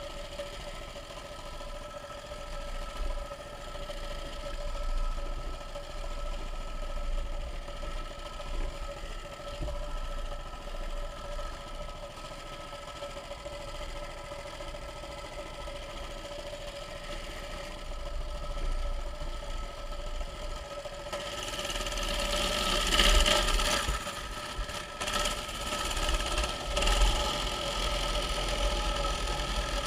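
Mini bike's small engine running at a steady idle-like hum, its pitch unchanging. About two-thirds of the way in, a louder rushing, crunchy noise joins it and comes and goes.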